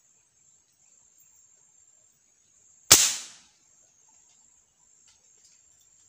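A single shot from a .22 air rifle (Strella Parco, charged with a foot pump), a sharp crack about three seconds in that dies away within half a second. A faint, steady, high insect drone runs underneath.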